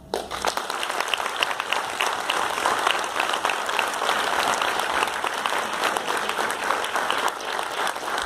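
Audience applauding, breaking out all at once and keeping up a steady, dense clapping.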